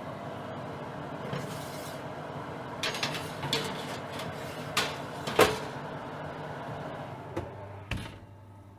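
Oven foley: a string of clicks and clunks from an oven being handled, the loudest about five and a half seconds in, over a steady hum.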